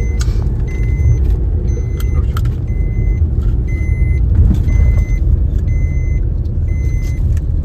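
Car cabin noise: a steady low rumble from the running car, with an electronic beep repeating about once a second.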